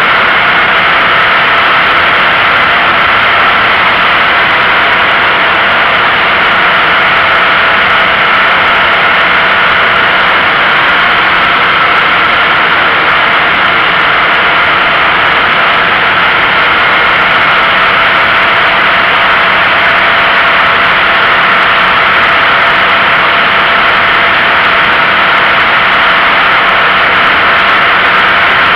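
Steady, loud rush of tyre and wind noise from a Toyota GT86 driving at speed, picked up by a camera mounted low on the outside of the car, close to the road surface.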